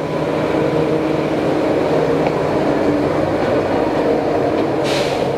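Steady din of a busy city street with traffic, with a short hiss about five seconds in.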